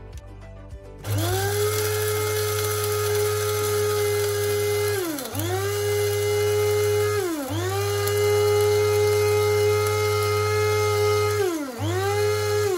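Small electric blade spice grinder grinding dry-roasted whole spices (cardamom, coriander, cumin, fennel, cloves, cinnamon, curry leaves) into powder. It whirs up about a second in and runs in pulses: three times its pitch drops briefly and climbs back as it is let off and pressed again, then it winds down at the end.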